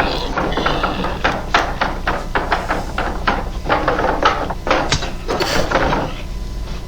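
Horror film soundtrack: a rapid, irregular run of sharp knocks and clatter.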